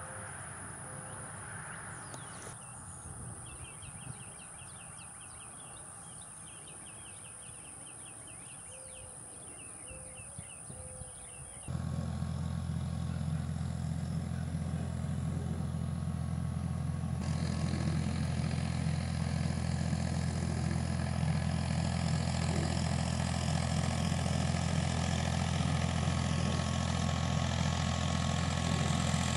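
Insects chirping steadily for about twelve seconds, then an abrupt change to the Ford/New Holland 3930's 3.3 L three-cylinder diesel running steadily under load while it pulls a rotary cutter (bush hog) through the field. The engine is the loudest sound.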